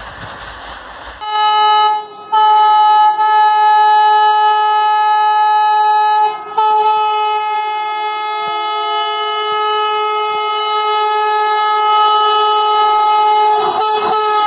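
Vande Bharat Express (Train 18) electric trainset sounding its horn as it approaches: a short blast, then a longer one, then a long held blast at a steady pitch. Before the horn there is about a second of noisy rumble.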